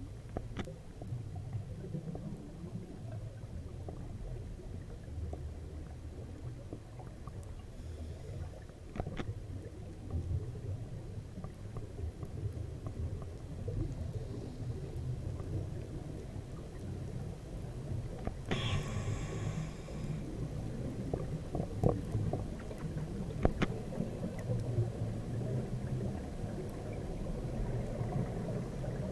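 Underwater ambience picked up by a camera in a dive housing: a steady low rumble of water and bubbles with a few sharp clicks, and a short hiss about two-thirds of the way through.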